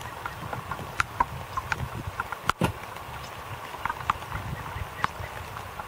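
Gusty wind rumbling on the microphone, with irregular light ticks and taps scattered through it and a brief drop-out about two and a half seconds in.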